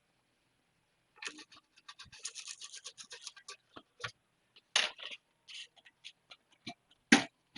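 Stiff brush scrubbing an ECU circuit board to flush out flux residue with IPA, a quick scratchy rubbing, followed by scattered sharp clicks and two louder knocks of the board or tools being handled.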